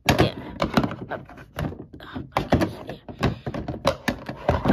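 Plastic toy pot and lid knocking and clattering as they are handled, a quick, irregular run of knocks.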